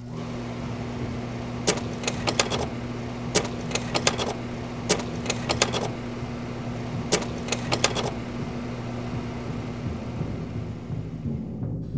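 A steady low machine hum with quick groups of sharp clicks, three to five at a time, coming every second or so for the first two-thirds. The hum thins out near the end.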